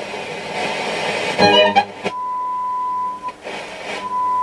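Hacker Hunter RP38A radio being tuned on FM: noise and a brief snatch of broadcast sound, then, about two seconds in, it settles on the signal generator's steady test tone, which drops out for a moment and comes back. This is the tone being found on the dial while the FM scale is aligned at 91 MHz.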